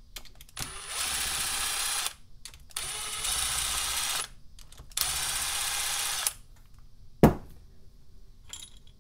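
Cordless power driver with a 10 mm socket spinning out the cam cap bolts on a KTM 450 SX-F cylinder head, in three steady runs of about a second and a half each. About seven seconds in comes a single sharp knock.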